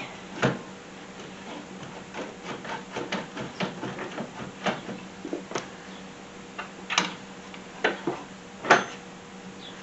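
Irregular metal clunks, clicks and scrapes as an alternator is worked loose and pulled out of a car's engine bay, with the loudest knocks near the end.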